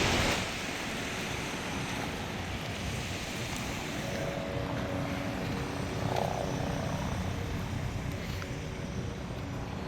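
A faint engine hum, strongest from about four to eight seconds in, over a steady hiss of outdoor background noise.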